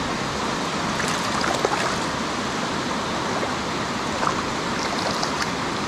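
Steady rush of river water running over small ledge falls and riffles, with a few faint light splashes from a small hooked rainbow trout at the surface.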